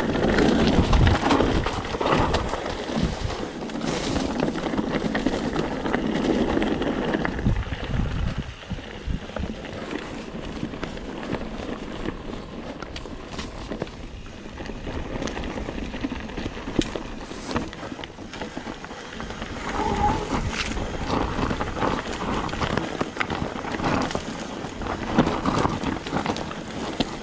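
Mountain bike rolling downhill over a rough, rocky trail: tyre noise and scattered knocks and rattles over the stones, with wind buffeting the microphone. The noise rises and falls with the terrain.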